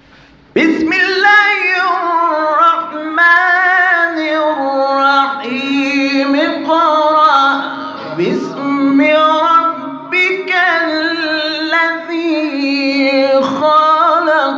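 A qari reciting the Quran in the melodic tajweed style in a high, loud voice. Long held phrases bend and waver in pitch, starting abruptly about half a second in, with brief breath breaks between phrases.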